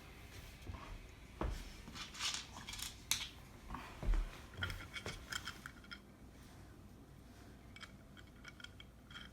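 Wooden easel parts and a metal hook being handled and fitted together: scattered small clicks and light scraping, with two dull knocks, about a second and a half in and about four seconds in.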